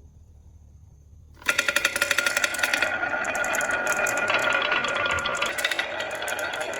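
Many marbles set loose at once, rattling and clacking in a fast, dense stream down a marble run track; it starts suddenly about a second and a half in, after a near-quiet opening.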